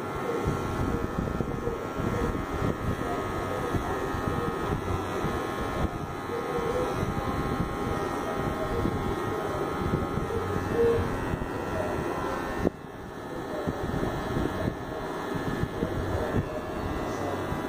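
Battery-powered PRO LIZZE hair clipper running steadily, its blades cutting close to the scalp as it shaves a line into short hair. The sound drops briefly about two-thirds of the way through, then resumes.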